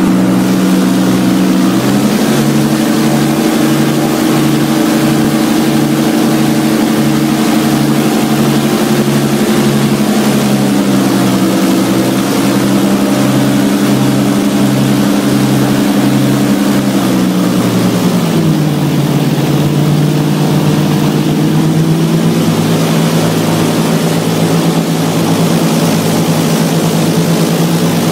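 Airboat engine and its big air propeller running loud and steady while the boat cruises. The pitch steps up about two seconds in, then drops back twice, near eleven and eighteen seconds, as the throttle changes.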